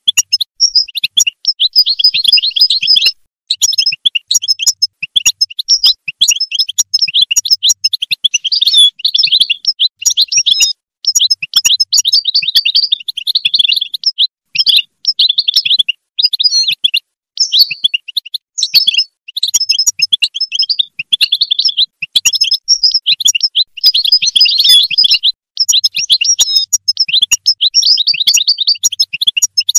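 European goldfinch singing: a loud, fast, continuous twittering song of rapid chirps and trills, broken by brief pauses every few seconds.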